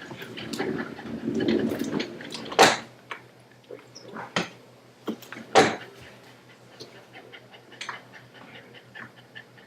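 A dog stirring, with rustling early on, then two sharp knocks about three seconds apart and a few lighter ticks.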